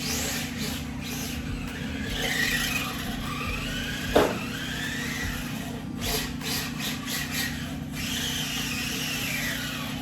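Radio-controlled car's electric motor and gears whining, rising and falling in pitch as the throttle is worked, over a steady low hum, with a sharp knock about four seconds in and a few short clicks a couple of seconds later.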